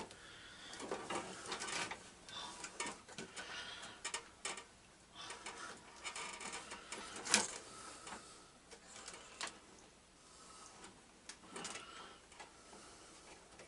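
Scattered small clicks, taps and rustles of hands unhooking wires and connectors on a lawn tractor's electrical system, with one sharper click about seven seconds in.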